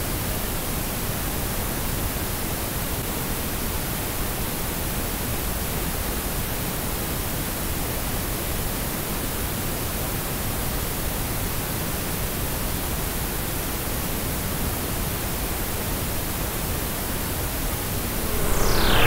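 Steady, even wash of static-like noise on a recorded track, with no beat or pitch. Near the end a sweep falling steeply in pitch cuts in and the level rises.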